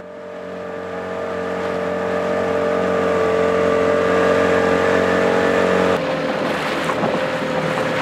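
Dinghy outboard motor running at a steady speed, its hum fading in over the first two seconds. About six seconds in the sound changes abruptly to a different steady motor hum with more water and wind hiss.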